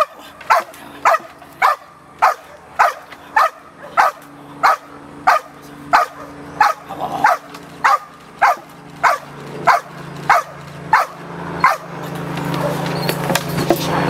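Belgian Malinois barking steadily and rhythmically, almost two barks a second, about twenty in all: demand barking at a helper's bite pillow in a bark-and-hold confrontation drill. The barking stops near the end as the dog takes the bite, and a steady low hum grows louder.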